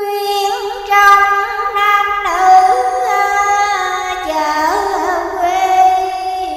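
A woman's voice chanting a Vietnamese Buddhist verse in a drawn-out melodic style, holding long notes with wavering ornaments and no clear words. The pitch steps down a couple of times through the phrase.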